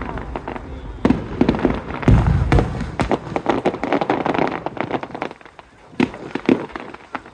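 Aerial fireworks bursting in a rapid run of sharp bangs and crackles, with a deep boom about two seconds in. The barrage thins out past the middle, then two or three more bangs come near the end.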